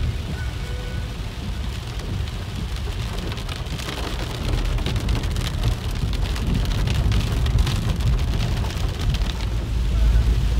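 Heavy rain pattering on a car's roof and windshield, heard from inside the cabin of a Ford EcoSport 4WD, over the low rumble of the vehicle driving on a rough, waterlogged dirt road. The rumble grows louder near the end.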